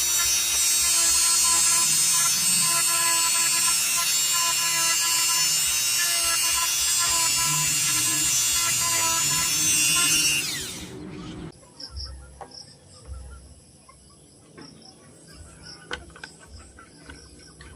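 Small electric power tool motor running at a steady high whine, then switched off about ten seconds in and winding down with a falling pitch. Afterwards crickets chirp, with a few faint clicks.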